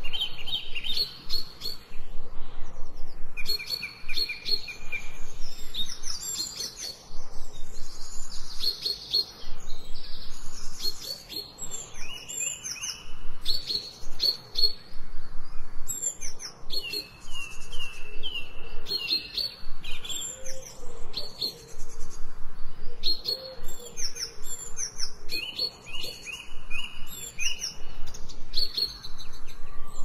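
Several songbirds singing at once: overlapping phrases of quick repeated high notes and short trills, one after another with brief gaps.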